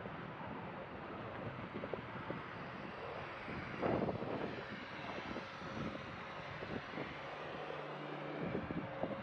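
Wind buffeting the microphone, with a steady low drone under it and scattered footsteps. Louder gusts come about four seconds in and again just before the end.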